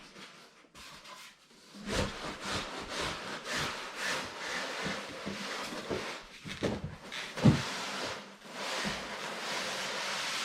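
Large cardboard TV box being lifted and slid up off its contents: cardboard rubbing and scraping against cardboard and foam packing, with scattered knocks and one sharp knock about seven and a half seconds in.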